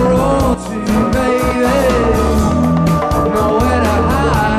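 Live rock band playing a mid-tempo groove: steady bass and drums with regular hi-hat ticks, guitar, and a bending lead melody line over it.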